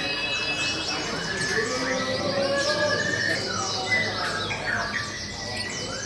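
Many caged songbirds singing at once in a bird-singing contest, a dense tangle of overlapping chirps, trills and whistled phrases that rise and fall in pitch.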